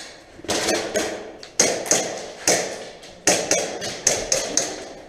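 Airsoft gunfire: about a dozen sharp cracks fired one at a time at an irregular pace, some in quick pairs, each with a short echo.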